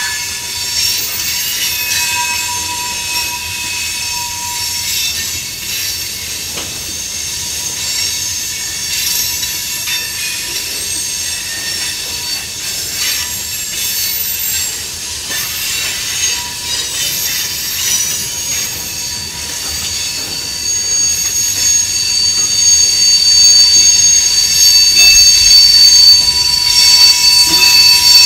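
Steel wheels of a mixed freight train's covered hoppers and tank cars squealing against the rail as the cars roll through a curve. Several steady high-pitched squeal tones ride over the noise of the passing cars and grow louder in the last third.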